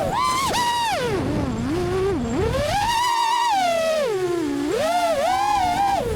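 FPV racing drone's motors whining, the pitch climbing and dropping with the throttle: high at first, sinking low about a second in, surging back up around three seconds, then dipping and rising again, over a rush of propeller wash.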